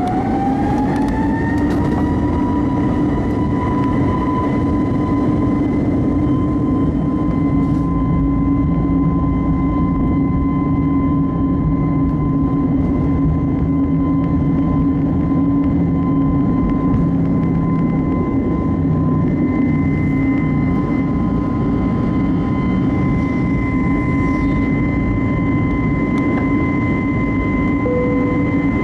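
Airbus A321neo's turbofan engines spooling up to take-off thrust: their whine rises over the first two seconds, then holds steady at full power, over a constant low rumble through the take-off roll.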